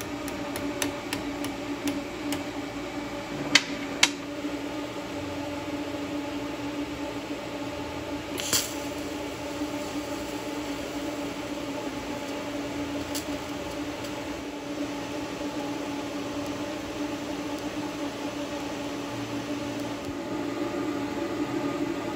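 TIG welding: a steady buzzing hum from the welder and arc while weld is built up on a worn vise pin to repair it. Two sharp clicks come about three and a half and four seconds in, and a short crackle near nine seconds.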